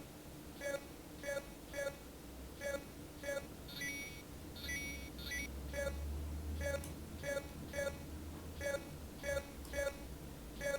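Software modular synthesizer patch playing short pitched bleeps that repeat about one and a half times a second over a low electronic hum, with a few higher bleeps about four to five seconds in.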